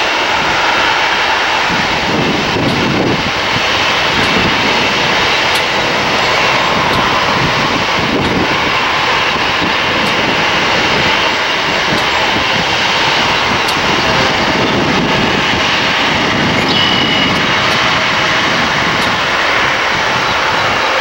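Gulfstream GV-SP's two Rolls-Royce BR700-series turbofans at takeoff power as the jet rolls down the runway and climbs away: a loud, steady jet noise with slow surges in its low rumble.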